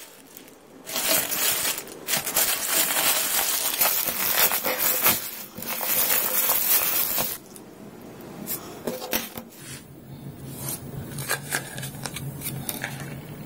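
Plastic courier mailer bag being torn open and crinkled for several seconds. After that come lighter clicks and taps as a clear plastic blister pack is handled, and a low steady hum comes in about two-thirds of the way through.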